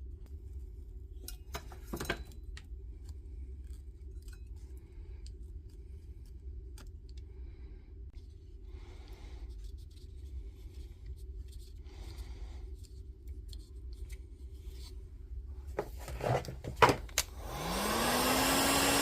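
Light clicks and taps of small-parts handling over a steady low hum, then near the end a small electric motor spins up, its whine rising and settling to a steady pitch under a rushing air noise.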